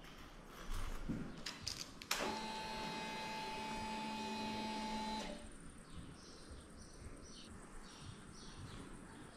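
Voge 500AC motorcycle's electric fuel pump priming as the ignition is switched on: a few clicks, then a steady whine that starts suddenly, holds for about three seconds and cuts off.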